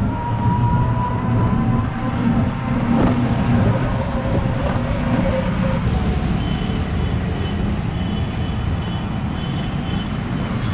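Steady road noise from a ride in an open rickshaw through town traffic: a low rumble with a faint whine, whose pitch shifts higher about halfway through.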